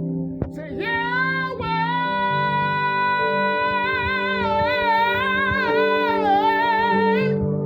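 A man singing one long, high, held note with vibrato during a vocal warmup, over sustained backing chords that change a few times. The note starts about a second in and stops shortly before the end.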